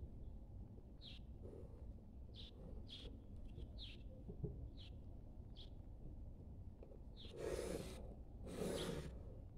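Graphite pencil drawing two lines along a ruler on drawing paper, two scratchy strokes near the end that are the loudest sounds. Short high bird chirps repeat faintly throughout.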